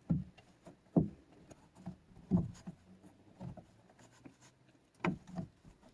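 Plastic drain-access flap on a BMW's engine underbody panel being pushed and turned into place by hand: a series of short knocks and rubs. The loudest come about a second in, near two and a half seconds, and about five seconds in.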